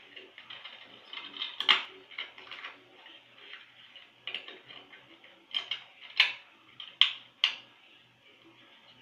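A run of sharp, separate plastic clicks and clatters from DVD cases being handled, with the loudest ones bunched in the second half.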